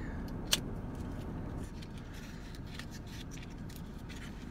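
Small cardboard lip gloss box being opened and handled: a sharp click about half a second in, then light scattered ticks and scrapes of the flaps and packaging over a low steady background noise.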